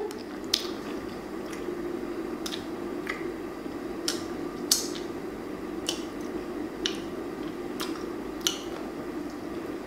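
Wet mouth sounds of a person eating saucy chicken with her fingers: chewing, finger-licking and short sharp lip smacks about once a second, over a steady low hum.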